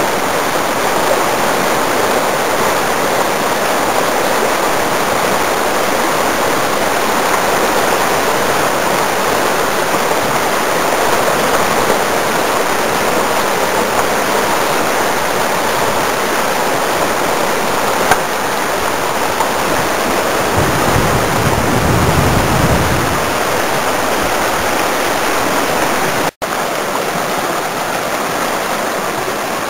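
Creek whitewater rapid rushing steadily. A low rumble joins it for a few seconds about two-thirds of the way through, and the sound cuts out for an instant near the end.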